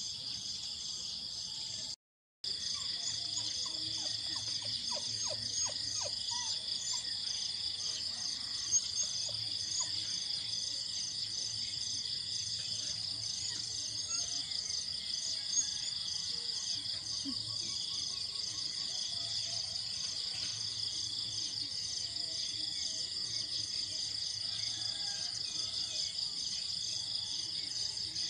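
Steady, high-pitched chorus of insects trilling with a regular pulse, briefly cutting out about two seconds in. A few faint bird chirps sound over it.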